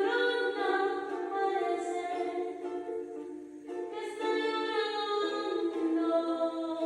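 A woman singing slow, long held notes, each sustained for a second or more before moving to the next pitch.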